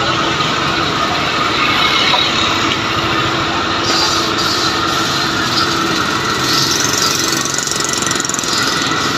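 Loud, steady din of a busy street market, with engine noise running through it.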